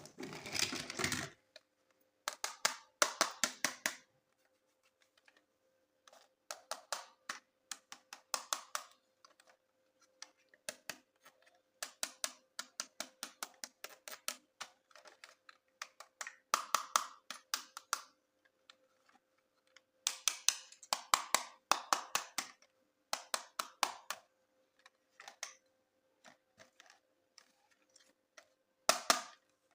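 Bursts of rapid light clicking and tapping from hard plastic toy parts being handled, over a faint steady hum.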